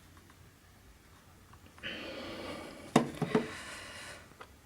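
Handling noise from a camcorder being turned over in the hands: a soft rubbing rustle with two sharp plastic clicks about three seconds in.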